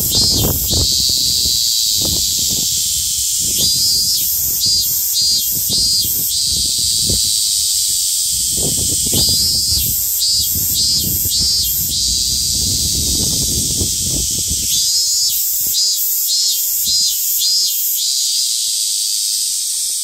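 Cicadas singing: a steady high buzzing chorus, with four phrases of one cicada's pulsed call at about two pulses a second rising over it. Uneven low rumble sits beneath.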